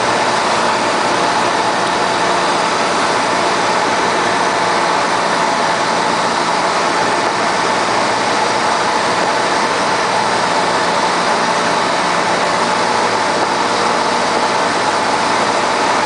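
Cessna 172's piston engine and propeller running at a steady drone, heard inside the cockpit on the approach.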